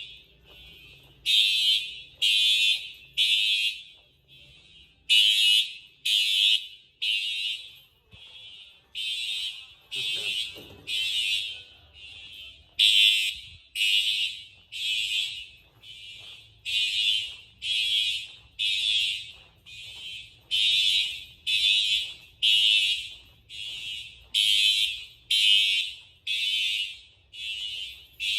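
Fire alarm horns (Siemens U-MHU type) sounding the temporal-3 evacuation pattern: three blasts, then a pause. The horns are out of sync with each other, so in the later part their blasts overlap and fill the pauses.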